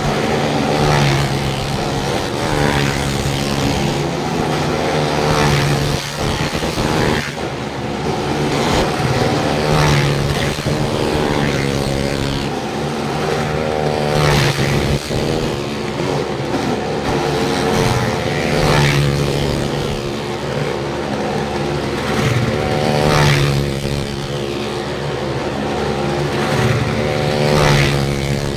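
Motor vehicle engines running and revving hard, the pitch rising and falling and swelling to a peak about every four to five seconds.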